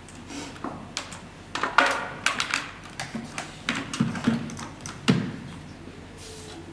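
Irregular clicks, taps and knocks of hands handling electronic gear and cables while a synthesizer is being hooked up to an oscilloscope, with the sharpest knocks about two and five seconds in.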